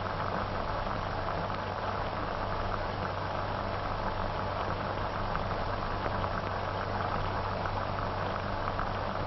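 Steady hiss and crackle with a low hum, the surface noise of an old optical film soundtrack.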